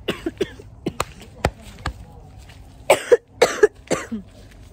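A woman coughing three times, about three seconds in, after a few sharp light clicks.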